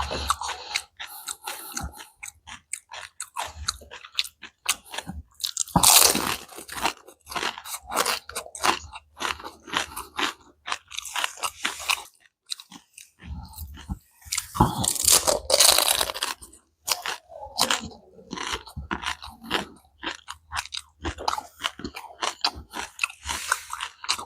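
Close-miked chewing and crunching of food, with many short crisp crunches and denser, louder bursts about six seconds in and again around fifteen seconds.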